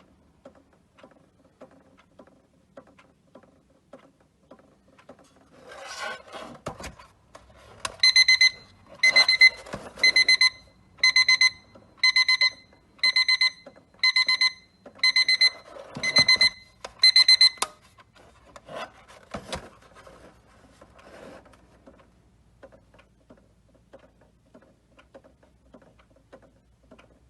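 Retro-style table alarm clock ticking softly and regularly, then its alarm sounding in about ten loud, evenly spaced ringing bursts, roughly one a second, before the ticking carries on. A few knocks and rubbing noises from the clock being handled come just before and just after the alarm.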